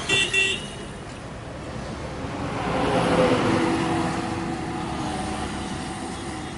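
A vehicle horn toots briefly twice, then a tanker truck passes on the highway: its road and engine noise swells to a peak about three seconds in and fades away.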